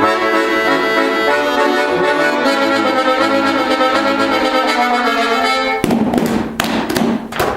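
Accordion music playing a lively tune that stops about six seconds in, followed by clapping applause.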